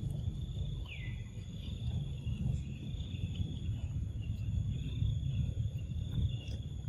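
Insects droning steadily in a high, even band, over a low rumble, with one short falling chirp about a second in.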